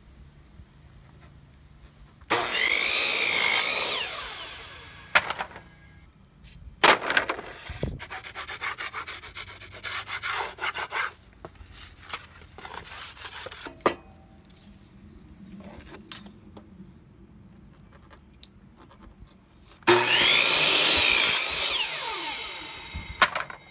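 Power miter saw cutting through boards twice, about two seconds in and again near the end: each cut is a loud whine from the spinning blade. Between the cuts come shorter knocks and rasping of wood being handled and worked.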